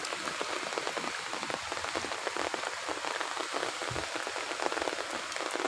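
Heavy rain pouring down, a steady hiss with a dense patter of drops striking surfaces.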